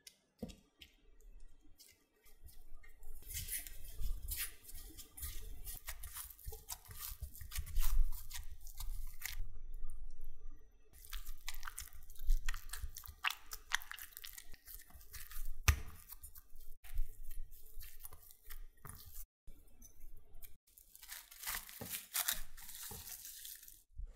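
Food being worked by hand on a kitchen counter: runs of crunchy scraping and crackling clicks in several bursts, with short pauses between them.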